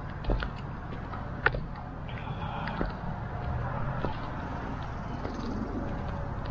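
Footsteps on a paved park path, faint irregular steps about once a second, over a steady low rumble.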